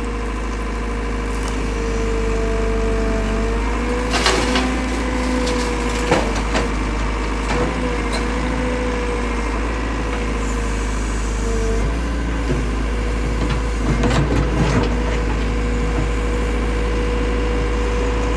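Backhoe loader digging: the engine runs steadily with a wavering hydraulic whine while the bucket scrapes, cracks and knocks against rocks and dirt, with sharp knocks about four and six seconds in and a cluster around fourteen seconds.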